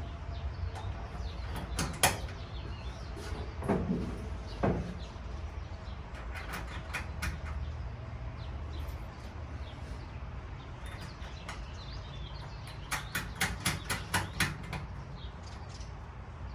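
Hand tools and clamp hardware clicking and knocking as wiring-harness clamps are fastened to a truck's firewall: a few separate knocks, then a run of about eight quick clicks near the end, over a steady low hum.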